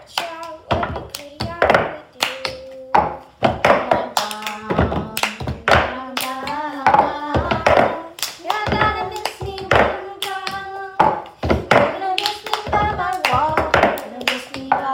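Children playing a hand-clapping game: quick, rhythmic claps, hand slaps and knocks, with children singing a chant over them.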